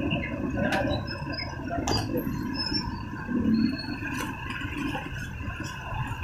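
Street traffic heard from a moving bicycle: a steady rushing noise with the hum of nearby motorcycle tricycle engines, and two sharp clicks within the first two seconds.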